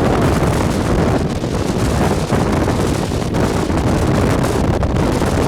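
Strong gusting wind buffeting the car and the microphone: a loud, continuous, deep rushing noise that swells and eases slightly.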